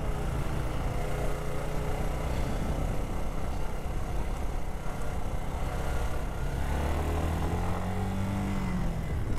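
2002 Suzuki GZ250's single-cylinder engine running while the motorcycle rides along, with wind rushing over the microphone. About six and a half seconds in, the engine note rises slowly, then drops away near the end.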